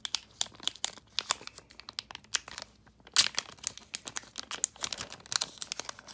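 Foil trading-card booster pack crinkling and being torn open by hand: a run of sharp crackles, the loudest about three seconds in.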